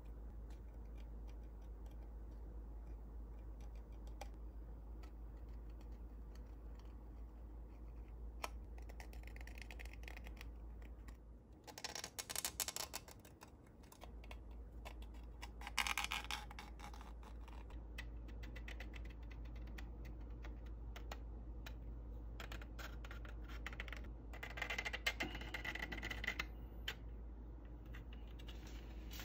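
A hobby-knife blade scraping and shaving the styrene plastic of a model car body, in three short bursts of scratching with faint ticks between.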